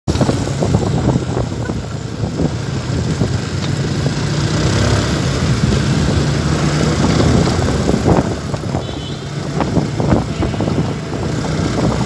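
A vehicle's engine running with road noise while driving along a street, heard from on board, steady throughout.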